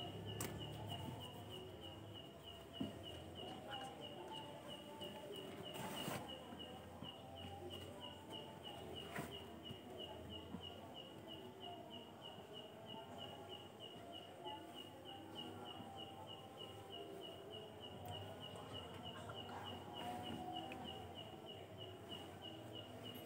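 Faint, steady chirping of a cricket, a high chirp repeated evenly about two times a second, over low room noise with a few soft clicks.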